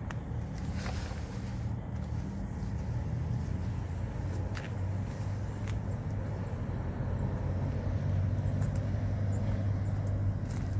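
Low, steady rumble of motor-vehicle traffic, growing louder in the last few seconds as a vehicle draws near.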